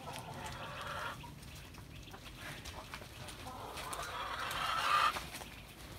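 Domestic hens clucking, then one longer call that swells from about three and a half seconds in and stops abruptly near the end.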